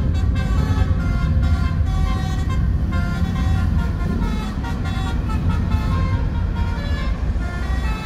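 A bus's Basuri telolet horn, a multi-tone air horn, playing a tune of quickly changing notes over the low rumble of road traffic.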